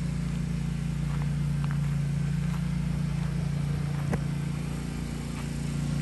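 Riding lawn mower engine running steadily, a low even drone with no change in pitch.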